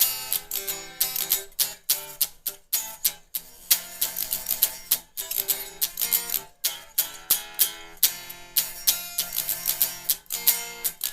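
Guitar strumming chords in a steady rhythm, with no singing over it.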